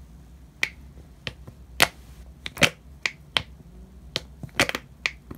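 White glue being squeezed from a large plastic squeeze bottle into a plastic bowl: about a dozen sharp, irregular clicks and pops from the bottle and the pouring glue.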